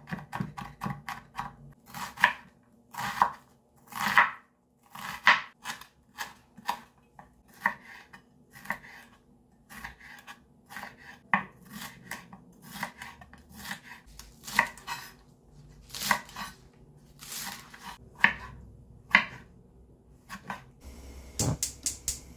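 Chef's knife chopping garlic and then slicing green bell pepper on a bamboo cutting board: a quick run of chops at first, then single cuts about one a second. Near the end a steady hiss from a lit gas burner sets in.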